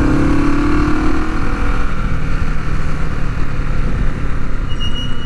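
1973 Honda CB450 parallel-twin engine running while the motorcycle is ridden. Its note is higher for about the first second and a half, then settles lower and steady.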